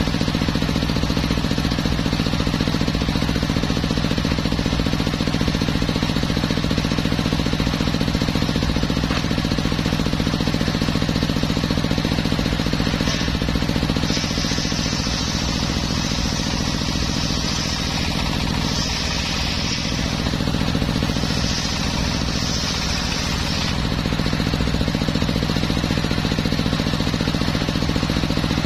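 Homemade circular sawmill running steadily, its engine droning; about halfway through, the blade cuts into teak wood with a high hissing rasp that comes and goes for about ten seconds.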